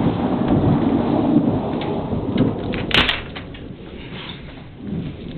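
Thunder rumbling over rain, with a sharp crack about three seconds in; the rumble dies down over the last two seconds.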